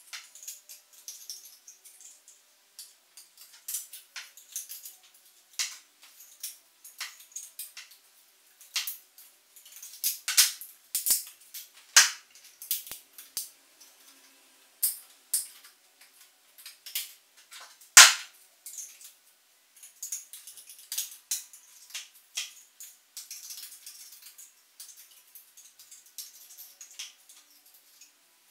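Irregular sharp clicks and snaps of small 3D-printed plastic parts being clipped and trimmed with hand cutters and a knife. The loudest snap comes about two-thirds through.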